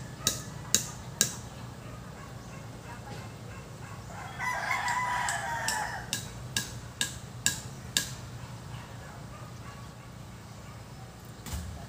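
A rooster crows once, about four seconds in, for about two seconds. Before and after it come sharp chopping strikes on wood, about two a second, which pause for a few seconds in the middle and come back once near the end.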